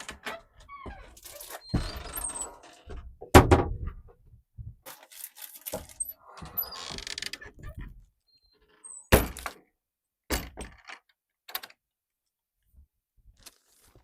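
Irregular knocks and thumps with rustling and handling noise inside a small wooden privy, the loudest thump about three seconds in and another sharp knock about nine seconds in, then a few faint clicks.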